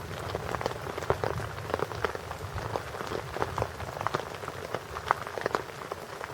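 Rain falling in a thunderstorm: a steady hiss with many separate drops tapping close by, and a low rumble underneath.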